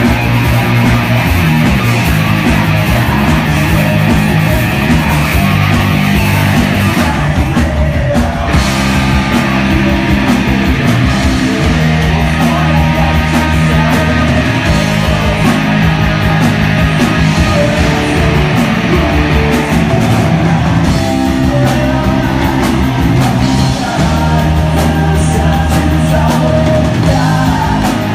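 A rock band playing live and loud: electric guitar, drums and a man singing into a microphone.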